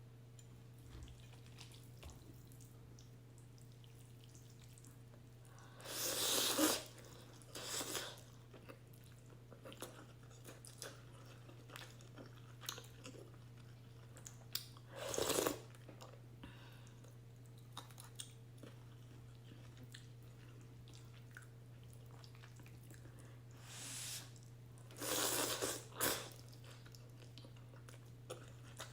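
Close-miked eating of beef and egg ramen: steady chewing with many small wet clicks, and a handful of louder noisy bursts of under a second each, about five in all, typical of slurping noodles. A low steady hum runs underneath.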